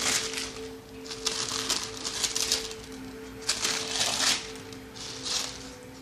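Packaging paper rustling and crinkling in short bursts as it is handled, over a steady low hum.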